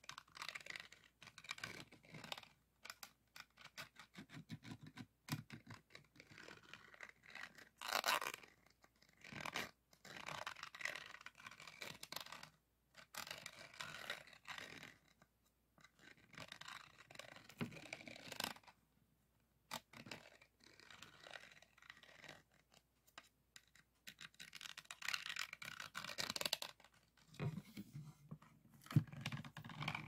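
Scratching and rubbing over the faceted resin drills of a diamond-painting canvas, in irregular strokes with small clicks and short pauses. The loudest stroke comes about eight seconds in.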